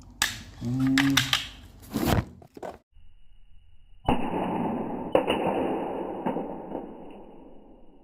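Die-cast toy car rolling across a hard surface: a steady rolling rumble starts suddenly about four seconds in, with a few clicks, and slowly fades as the car slows. Before it come a few short knocks of the toy being handled.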